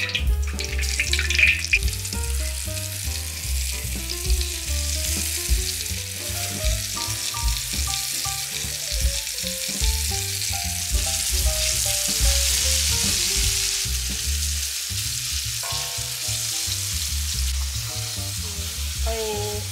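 Chicken pieces coated in egg and tapioca starch sizzling steadily as they fry in hot oil, with background music playing underneath.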